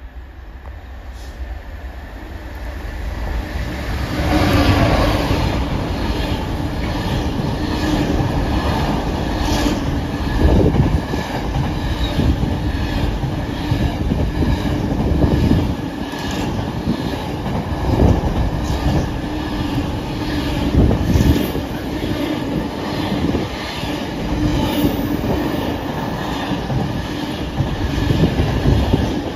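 Long container freight train passing through. The noise builds over the first four seconds, then a steady rumble of wagons runs on with repeated wheel clatters every couple of seconds.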